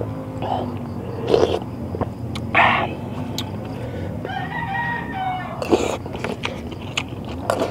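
A rooster crows in the background around the middle, over close eating sounds: a metal spoon scraping and clicking as it scoops rice, and chewing.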